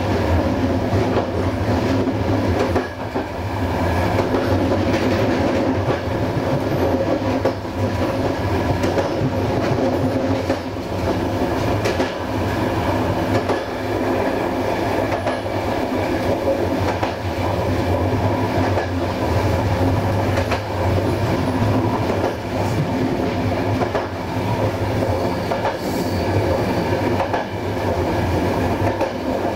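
Passenger train coach rolling along the track, heard from on board: a steady rumble with wheels clicking over the rail joints every second or two.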